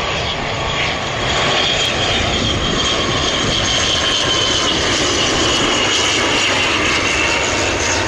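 Airliner's engines running loud as the plane passes close by on the runway, a high whine slowly falling in pitch over a broad rush of engine noise.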